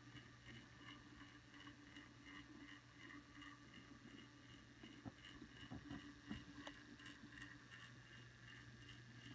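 Near silence: a faint steady hum, with a few faint clicks about halfway through.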